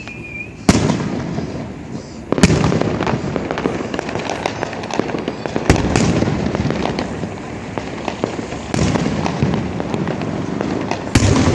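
Aerial fireworks going off: about five loud booming bursts a few seconds apart, each followed by a long crackling, rumbling tail.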